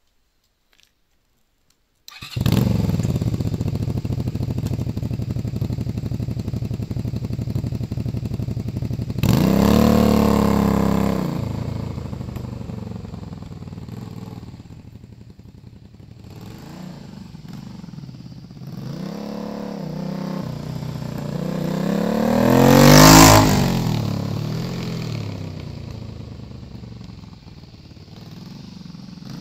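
Honda VTZ250's 90-degree V-twin with a Moriwaki slip-on exhaust. It comes in suddenly about two seconds in and runs steadily, revs hard about nine seconds in as the bike pulls away, then comes back revving through the gears. It passes close by near the end, at its loudest, with the pitch dropping as it goes past, and fades.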